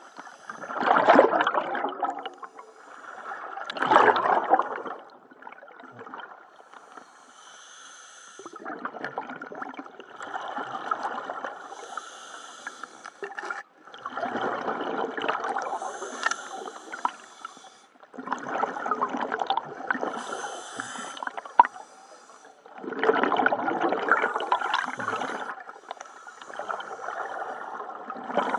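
Scuba diver breathing through a regulator underwater: bursts of exhaled bubbles rumble and gurgle past the microphone about every four to five seconds, with fainter hiss between breaths. A single sharp click about two-thirds of the way through.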